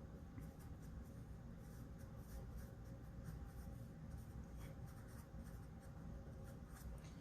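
Faint scratching of handwriting: short, irregular writing strokes over a faint steady hum.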